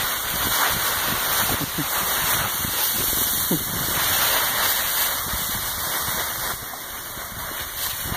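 Dry oak leaves rustling and crunching steadily as a Rottweiler burrows and roots through a deep leaf pile, nosing for its ball. The rustling eases somewhat near the end.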